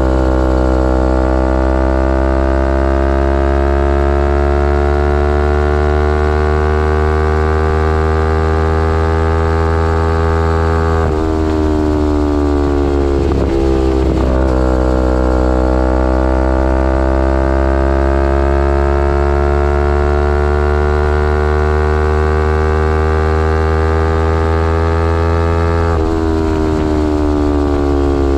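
Exhaust note of a Kawasaki Ninja 250R's parallel-twin engine through a full Graves race exhaust, running steadily under way with its pitch drifting slowly. The pitch changes abruptly about a third of the way in, again just before halfway, and near the end.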